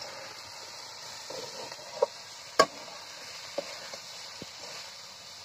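Metal spatula stirring potato and ivy gourd strips frying in a steel kadai, with a few sharp clicks of the spatula against the pan over a faint steady sizzling hiss.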